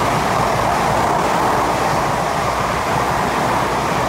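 A passing train's steady rolling noise, loud and even throughout.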